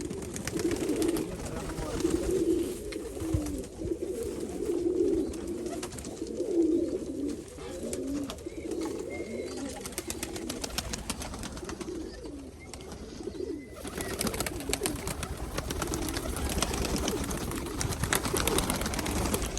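Nikolaev pigeons cooing over and over, low and pulsing. A steady noisy hiss joins about two-thirds of the way through.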